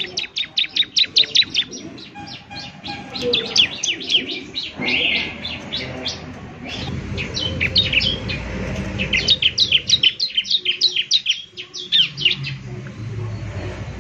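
Bar-winged prinia (ciblek) singing: rapid strings of sharp, high, downward-sweeping chirps, about seven a second, in several bursts separated by short pauses.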